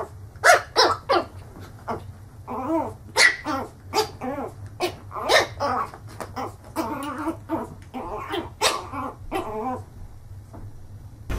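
Small fluffy puppy yapping in a rapid run of short, sharp barks at its own reflection in a mirror. The barks stop about a second before the end.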